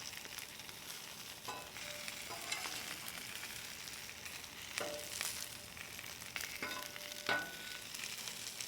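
Potato crowns and bratwurst frying in oil on a hot flat-top griddle, a steady sizzling hiss with fine crackle. A few brief sharp clinks cut in, about a second and a half, five and seven seconds in.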